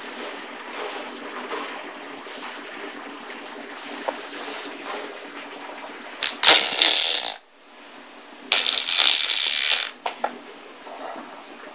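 Two loud, hissy funny noises made by someone's mouth or voice, each about a second long, a little past the middle, over a steady background hiss.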